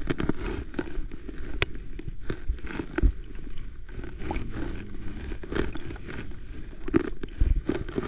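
Muffled low rumble with many scattered sharp clicks and crackles, a few of them louder.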